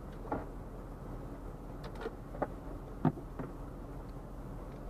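Steady low engine hum heard from inside a car cabin, with a handful of sharp clicks scattered through it.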